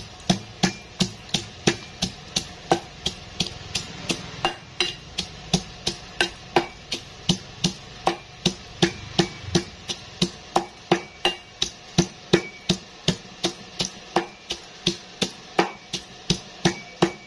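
Metal pestle pounding garlic, shallot and bird's eye chillies with salt in a stainless steel bowl, steady sharp knocks about three a second, crushing them into a chilli-salt paste.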